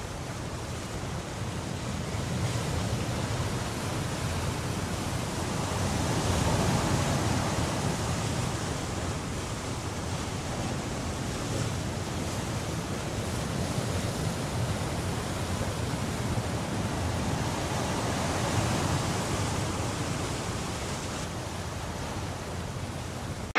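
A steady rushing noise with no tone in it, swelling and easing slowly a few times.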